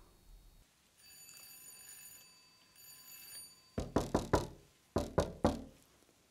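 Knuckles knocking on a glass-paned front door: two sets of three raps, about a second apart. Before them a faint bell-like ringing tone sounds twice.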